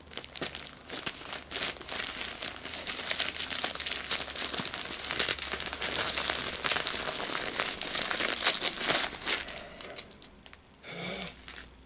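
Gift-wrapping paper being torn and crinkled by hand as a present is unwrapped, a dense run of rustling and ripping that stops near the end.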